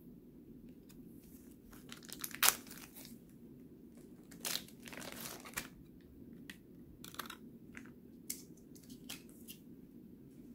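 Trading-card pack wrappers crinkling and tearing in irregular bursts, the loudest sharp rip about two and a half seconds in and a longer rustle around five seconds, with smaller crackles after.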